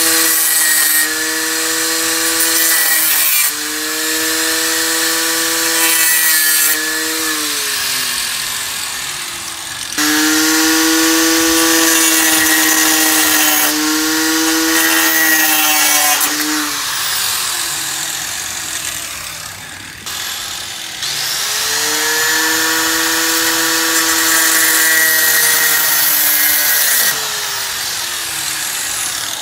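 Angle grinder with a cutting disc running at speed and cutting through steel brake lines, a high whine over a hissing grinding noise, its pitch sagging under load. It runs three times, each run ending with the whine falling away as the disc spins down.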